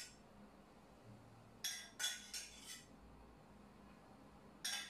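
A spoon and other small kitchen utensils clinking lightly against a cup and dishes: a quick run of about four light clinks about two seconds in, and another cluster near the end.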